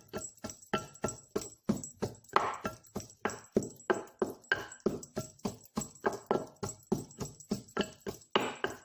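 Wooden pestle pounding in a wooden mortar: a steady run of knocks, about three or four a second, some leaving a brief ringing tone.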